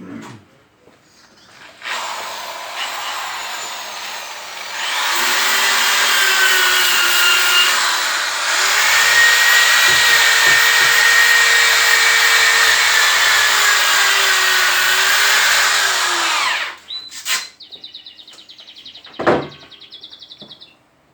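Handheld power tool polishing a steel pot: a loud motor whine whose pitch sags and recovers as the pad is pressed against the metal. It starts about two seconds in, grows louder a few seconds later, and cuts off suddenly after about fifteen seconds.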